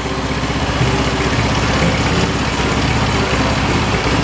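A 200cc engine in a CB motorcycle running at a steady idle, its exhaust pulsing evenly.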